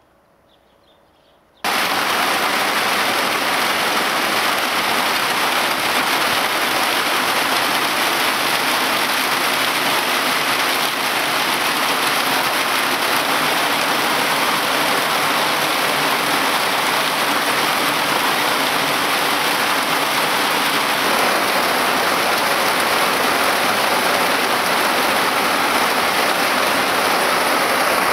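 Heavy downpour at night: a dense, steady hiss of torrential rain that cuts in suddenly just under two seconds in, after a near-silent moment.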